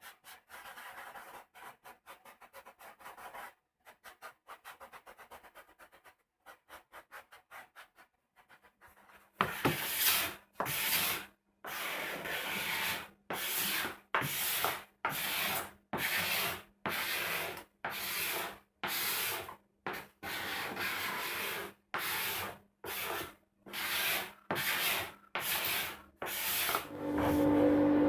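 Hand tool working elm wood in repeated strokes. The strokes are quick and light for roughly the first nine seconds, then become louder and longer at a little over one stroke a second.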